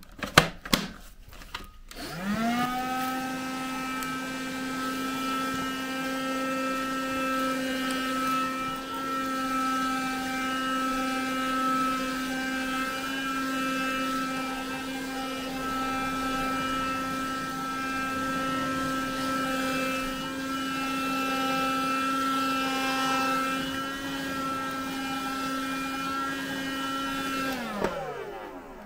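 Hoover Jovis Cyclean 7.2-volt cordless handheld vacuum cleaner switched on about two seconds in, its motor spinning up to a steady whine as it sucks up dirt from a mat. Near the end it is switched off and the whine falls away as the motor winds down. A few handling clicks come before it starts.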